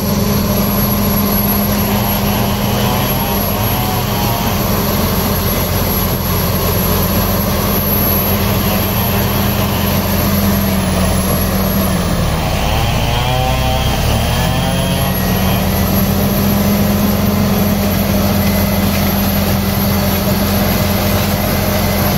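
Caterpillar D7R crawler dozer's diesel engine running hard as it pushes through brush, a steady low drone with a high whine above it. About halfway through, the pitch sags for a couple of seconds under load, then picks back up.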